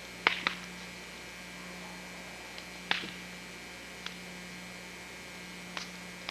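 Steady low electrical hum with a handful of sharp clicks scattered through it, the loudest pair about a third of a second apart just after the start.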